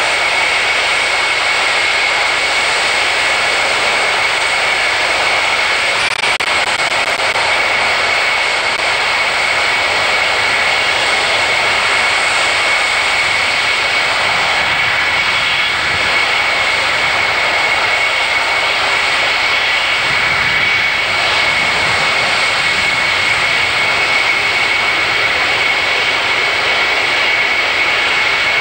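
Concorde's four Olympus 593 turbojets running at low power as the aircraft taxis: a steady jet noise with a high whine held on one pitch.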